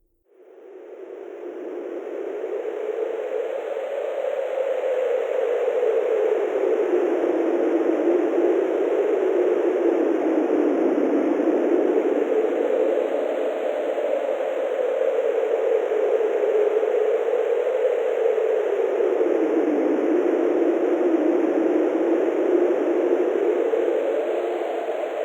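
Wind sound effect: a steady rushing noise that fades in over the first few seconds, then holds, its pitch slowly drifting up and down.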